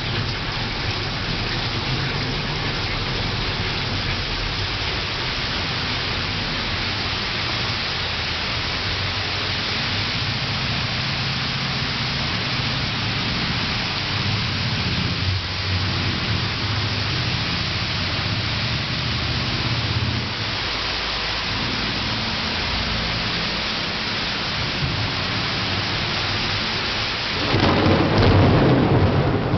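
Steady heavy rain with thunder rumbling low underneath. Near the end a louder burst of sound swells up for a second or two.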